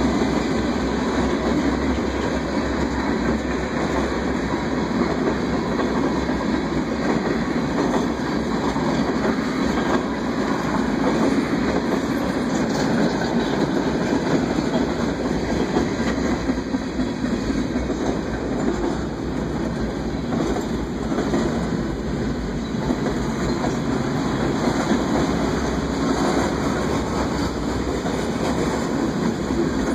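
Freight cars of a CSX train rolling past close by: a steady, unbroken noise of steel wheels on rail.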